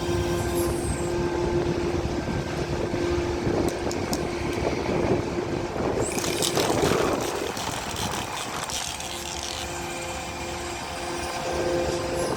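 Docking ferry's engines running with a steady hum and rumble, and a louder rush of noise for a second or two about six seconds in.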